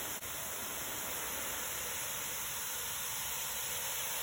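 Baking soda and vinegar fizzing as the foaming reaction bubbles up, a steady hiss.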